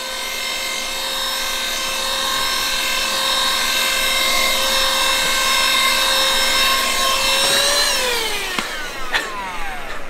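Hokey battery-powered handheld vacuum running with a steady motor whine and rush of air as it sucks dirt off a cloth. About eight seconds in its pitch lifts briefly, then it is switched off and the whine winds down over about a second.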